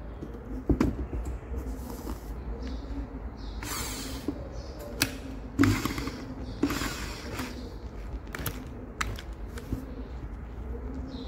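Handling noise: scattered knocks and clicks as plastic tubing and a small metal gear pump are moved and set down on a cloth-covered bench, with a couple of brief rustles. The loudest knocks come about a second in and again a little past halfway.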